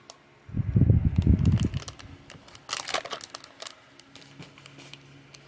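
Paper envelope and plastic packaging of a 1965 special mint set crinkling and rustling as it is handled. A low rumbling handling noise runs from about half a second to two seconds in, followed by sharp crackles around the middle.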